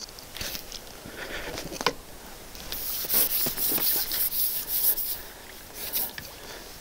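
Irregular rustling and scraping with scattered clicks, and a dense, scratchy rustle through the middle and again briefly near the end: handling of a freshly landed bream.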